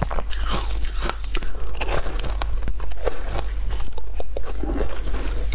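Close-miked biting and chewing of frozen shaved-ice balls, a fast run of sharp, crisp crunches as the hard ice breaks between the teeth.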